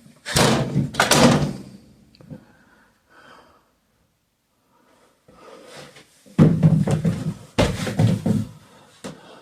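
Doors being opened and shut, heard as two clusters of sharp knocks and thuds: one right at the start and another about six seconds later, with a near-quiet pause between.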